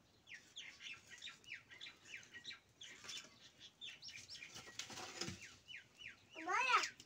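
Small birds chirping over and over, each chirp a quick downward sweep, two or three a second. Near the end comes one louder call that rises and falls in pitch.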